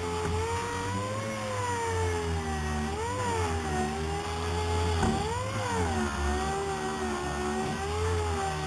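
Air-powered random orbital sander running while it sands plywood seams and edges, a steady whine whose pitch wavers and rises briefly about three seconds in and again around five and a half seconds in.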